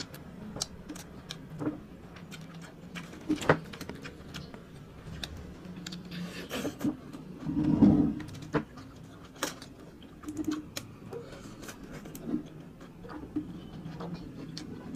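Close-miked eating: chewing, with scattered sharp clicks of fork and mussel shells against the platter. A loud puff of breath comes about eight seconds in.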